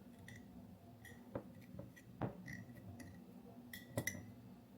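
Light, scattered clicks and taps from small objects being handled while adding baking soda, about half a dozen spread out, the sharpest a little past two seconds and about four seconds in.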